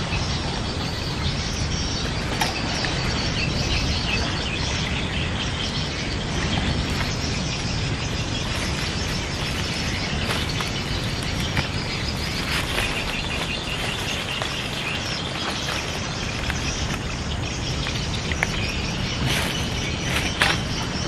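Steady outdoor background noise with birds and insects chirping through it, and a few brief clicks in the second half.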